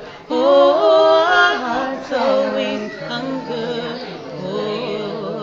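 Voices singing a slow worship song in harmony, with long held notes and vibrato; a loud held note follows a short break at the start.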